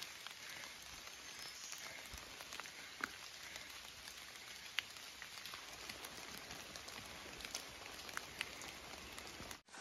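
Light rain falling on forest foliage: a faint, even hiss with scattered drops ticking now and then.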